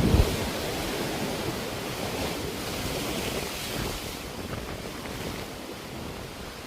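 Sea waves washing onto the shore, with wind buffeting the microphone. The surf is fullest in the first few seconds and eases off after about four seconds.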